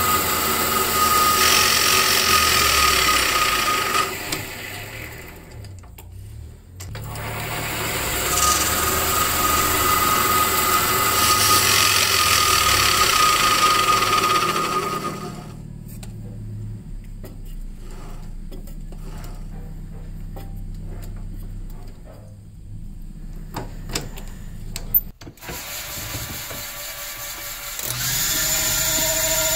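Metal lathe spinning a carbon-fiber cue shaft while a cutting tool turns down its G-10 ferrule: two loud cutting passes with a steady high tone, a brief lull between them. The lathe then runs more quietly with scattered clicks and one sharp click, and near the end settles into a steadier whine with a higher tone.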